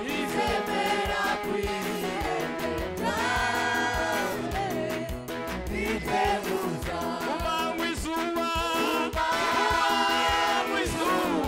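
Live gospel music: a group of singers singing together into microphones over a band with a steady drum beat.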